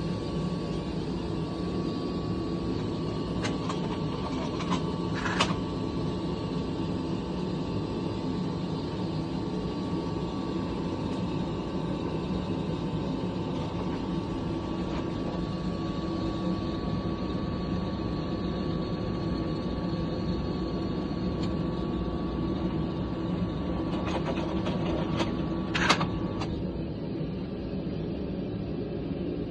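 Electric shop machine motor running steadily with a thin whine, and a few sharp metal clicks. The whine stops near the end, just after the loudest click.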